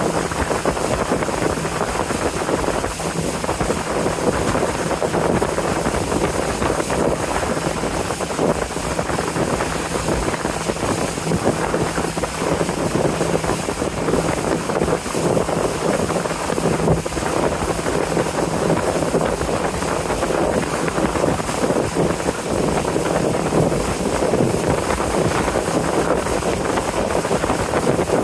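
Boat engine running steadily while the riverboat cruises under way, with a constant low hum, mixed with wind buffeting the microphone.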